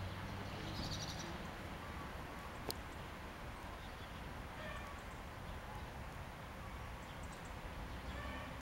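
Outdoor farmyard ambience: a steady background hum with a few faint bird calls, a brief high chirp about a second in and short calls around five and eight seconds, plus one sharp click near three seconds.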